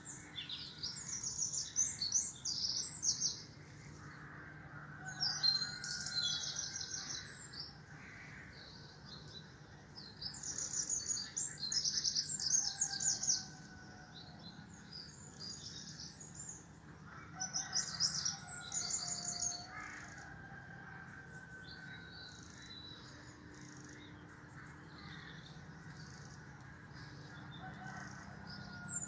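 Songbirds chirping in bursts of rapid high chirps, each burst two to three seconds long, with pauses of a few seconds between, and fainter, longer, lower calls in the gaps.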